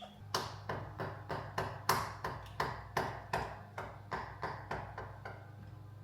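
A run of light, ringing metallic taps or clicks, about three a second and evenly paced, growing fainter toward the end, over a low steady hum.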